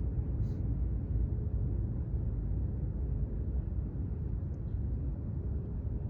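Steady low rumble with a faint hum, the road and engine noise of a moving vehicle heard from inside the cabin.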